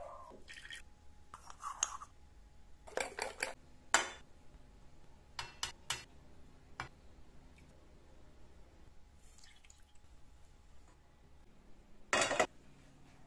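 Kitchen utensils clinking and tapping: a measuring spoon knocking against a bowl and a stainless steel pan as ingredients are added, in scattered short clicks. A louder clatter comes near the end.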